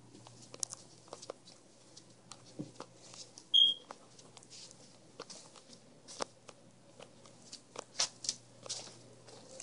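Quiet rustling of clothing against the phone's microphone, with scattered soft clicks and taps of handling and movement. One short high squeak about three and a half seconds in is the loudest sound, and a few sharper ticks come near the end.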